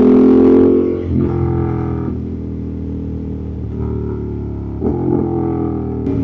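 Ducati Monster 1200S's L-twin engine running at a steady pitch under way. The note drops about a second in and changes again near five seconds as the throttle eases and opens.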